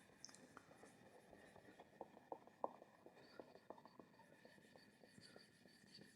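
Near silence with faint, scattered taps and scratches of writing, most of them between about two and four seconds in.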